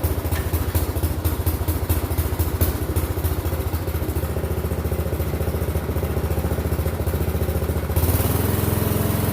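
Briggs & Stratton 5 hp single-cylinder engine on a garden tiller running steadily with a fast, even firing rhythm, just after a cold start on the first pull after sitting unused since last year on old fuel. About eight seconds in its note changes and gets a little louder.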